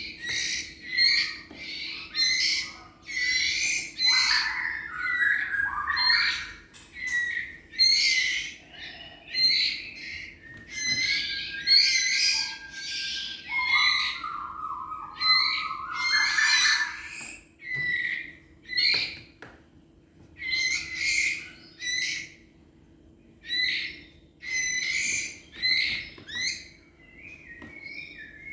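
A songbird singing a busy run of short, varied phrases, roughly one a second, with a few longer whistled notes mixed in.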